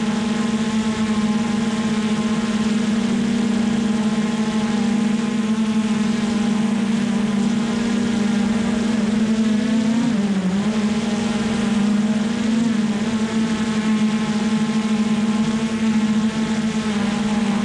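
Hubsan Zino Pro drone's motors and propellers whining steadily while hovering, heard close up from a camera mounted on the drone. The pitch wavers and dips briefly about ten seconds in as the motors adjust their speed.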